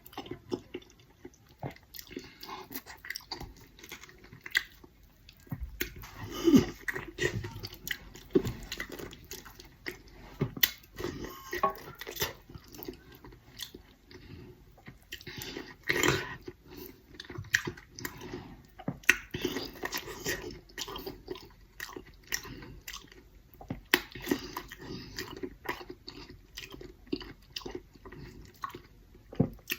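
Close-miked mukbang eating of eggplant: irregular biting, chewing and wet mouth clicks.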